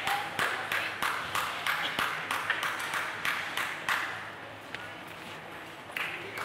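Spectators clapping in an even rhythm, about three claps a second, after a point in a table tennis match, dying away about four seconds in and starting again near the end.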